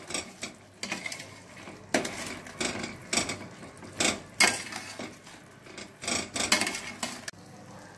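A flat metal spatula scraping and knocking against the inside of a stainless steel pot in irregular strokes as whole potatoes are turned in thick gravy. The strokes stop about seven seconds in.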